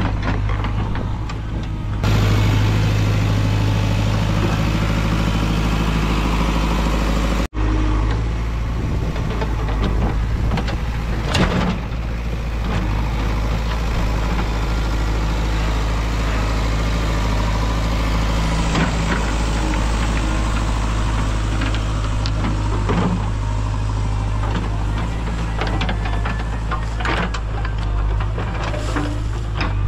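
JCB backhoe loader's diesel engine running steadily as the backhoe digs, with a few clunks scattered through.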